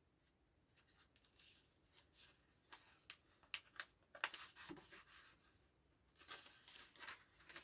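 Faint rustling and a few light clicks of a paperback book being handled and its pages turned.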